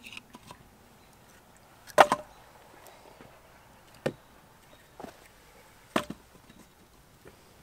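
Split firewood knocking and clunking as pieces are picked up and laid into a steel fire ring: a few sharp wooden knocks about two seconds apart, the loudest about two seconds in.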